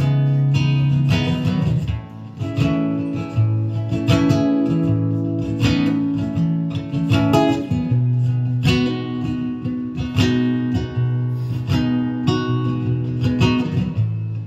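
Solo acoustic guitar playing an instrumental passage: plucked chords over a moving bass line, with a brief drop in level about two seconds in.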